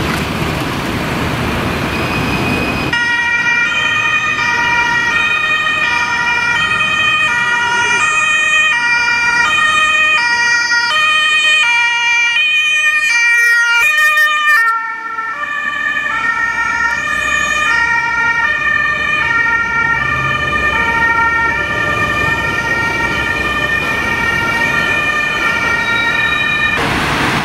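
Road traffic noise, then a German two-tone emergency siren alternating between its two pitches on a German Red Cross ambulance. The siren gets louder as the ambulance passes close about halfway through, drops in pitch as it goes by, and keeps sounding more faintly as it drives away.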